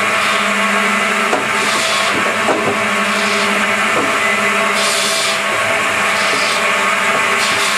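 DS-33 double-saw firewood processor running, its two 700 mm stellite-tipped circular blades cutting hand-fed branch wood into firewood pieces. A steady machine hum is broken by a hiss of cutting about every second and a half, with occasional knocks of wood.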